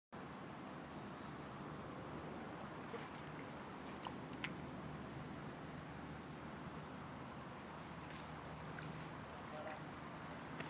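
Insect chorus: one steady, unbroken high-pitched drone over a soft even hiss.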